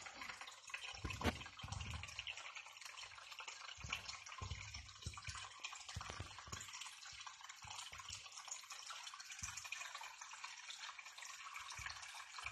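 Aquarium water bubbling and trickling steadily from the tank's aeration, with a few dull low thumps, the loudest about a second in.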